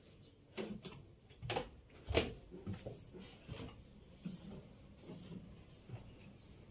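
Footsteps going down a narrow winding staircase of wooden boards: a string of irregular thuds, one or two a second, the heaviest about two seconds in. The steps grow softer near the end as they reach a concrete floor.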